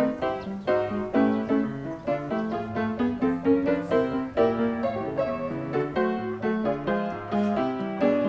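Background piano music, a steady stream of struck notes.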